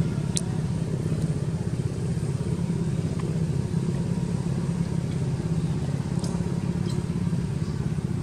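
A small engine running steadily with a low, even drone, with a few faint clicks over it.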